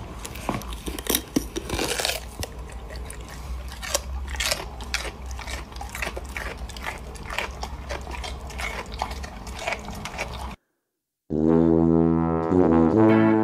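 Golden retriever chewing on a hard green chew toy: irregular crunching, clicking bites over a low steady hum. This cuts off about ten and a half seconds in, and after a short gap plucked guitar music starts.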